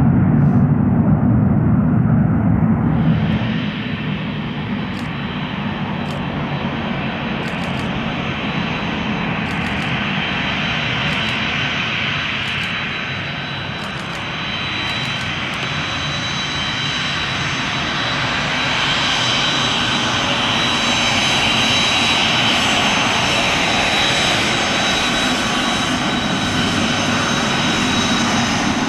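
A deep jet rumble that drops away about three seconds in. Then the engines of a taxiing Dassault Falcon 20-series twin-engine business jet: a steady high whistling whine with hiss, growing louder in the second half.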